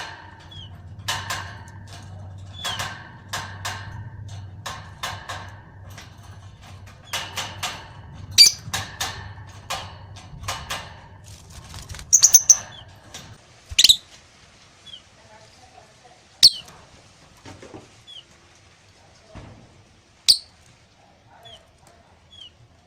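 Lovebird giving sharp, high chirps and squeaks at irregular intervals, with a quick loud run of calls about twelve seconds in. Scratchy clicking and a low hum fill roughly the first half, then stop.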